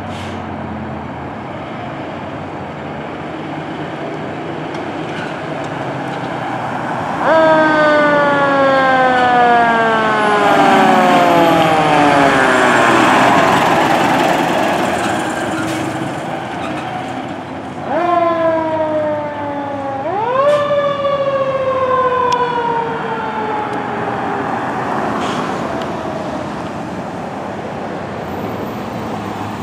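Fire engine siren sounding over the rumble of the truck and traffic. Two long sweeps, each jumping up sharply in pitch and then falling slowly, start about a quarter of the way in and fade out in the last few seconds.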